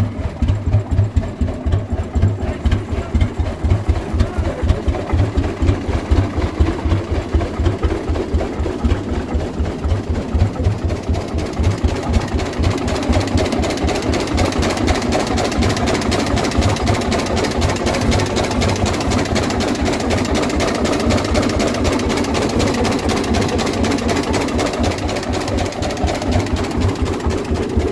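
A 1922 Rumely OilPull tractor's two-cylinder engine running at a steady, even beat. About halfway through it runs more smoothly and a little louder.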